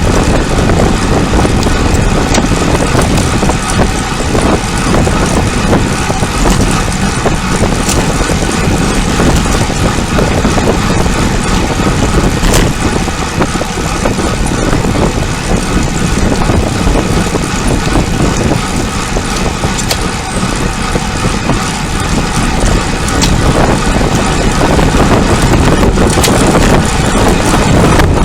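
Wind rushing over the microphone of a camera on a moving road bicycle, with tyre and road noise mixed in: a loud, steady rush that never lets up.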